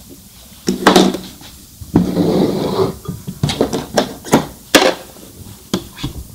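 Heavy denim jeans being handled and drawn out at a sewing machine: two stretches of fabric rustling, then a run of sharp clicks and knocks.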